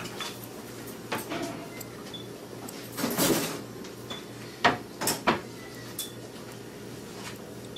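Sparse clicks and light knocks of metal surgical instruments being handled, with three sharp clicks close together a little past the middle and a brief rustle about three seconds in, over a steady low hum.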